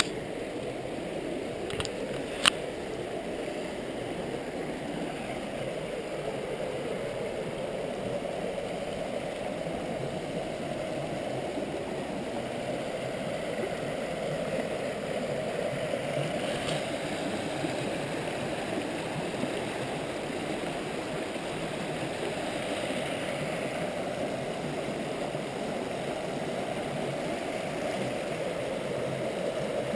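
Hillsborough River rapids: water rushing steadily through the rapids, an even, unbroken noise. Two short clicks sound about two seconds in.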